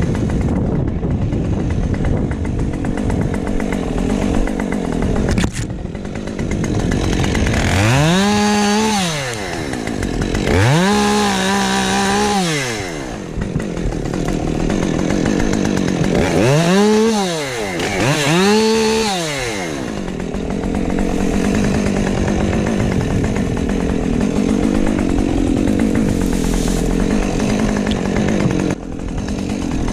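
Husqvarna 550XP Mark II two-stroke chainsaw running, revved up to full throttle and back down four times, in two pairs.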